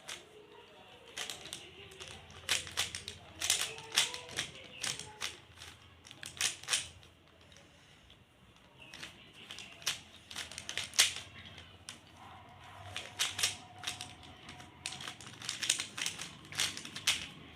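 Rubik's cube being twisted by hand while solving: quick, irregular plastic clicks and clacks of the layers turning, with a pause of about two seconds midway.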